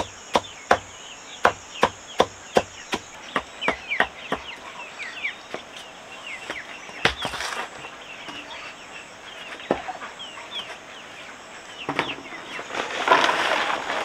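Regular chopping strikes with a blade, about two to three a second, thinning out and stopping around the middle, while chickens cluck and insects buzz steadily. A louder burst of rustling comes near the end.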